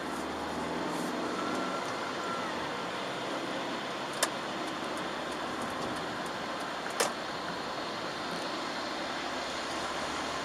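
Chevrolet Aveo driving on a rain-wet road: a steady hiss of tyres and rain over a low engine hum. Two sharp clicks come about four and seven seconds in.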